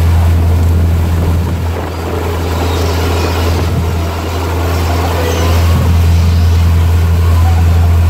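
Cruise boat's engine running with a steady low drone over the rush of the propeller wake, with a few faint gull calls around the middle.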